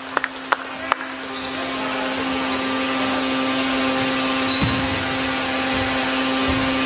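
A basketball bounces three times on a gym floor in the first second, then a steady rushing noise with a constant low hum takes over.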